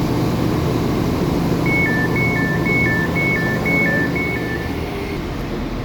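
Class 196 diesel train's door warning beeps: a two-tone signal alternating high and low, about six high-low pairs at roughly two a second, starting about two seconds in. Under it, the steady hum of the idling diesel unit.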